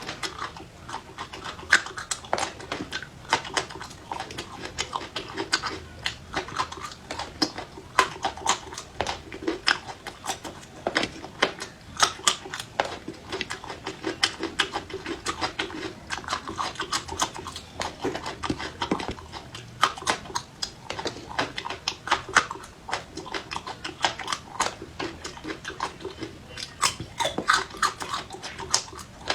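Close-miked chewing of raw bird's eye chilies and garlic: a steady run of sharp, irregular crunches and mouth noises.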